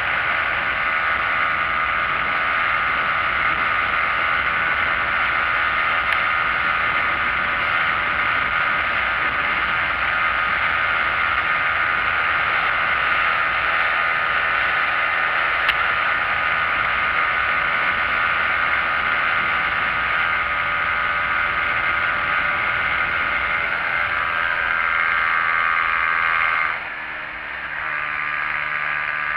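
Motorcycle engine running steadily at highway speed, mixed with wind rush over the handlebar-mounted microphone. Near the end the engine note drops away briefly as the throttle eases, then picks up again at a slightly lower pitch.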